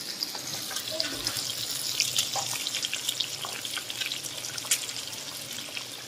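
Fish pieces frying in hot oil in an aluminium kadai: a steady sizzle with many small crackles and pops.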